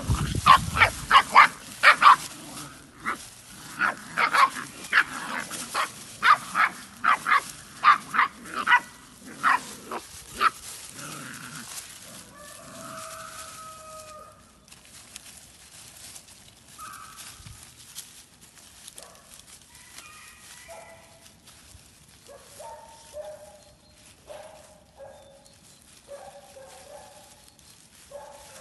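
Puppies yapping during rough play: loud, high-pitched yelps in quick succession, about two or three a second, for roughly the first ten seconds. After that the yelping stops and only fainter, scattered short calls are heard.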